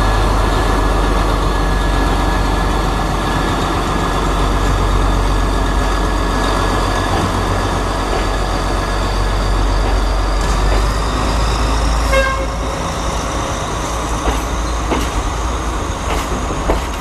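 S8 diesel multiple unit passing close by at low speed, its power car's diesel engine running loud and steady. The engine's rumble eases about twelve seconds in as the carriages roll past with clicks from the wheels and a thin high tone slowly rising in pitch.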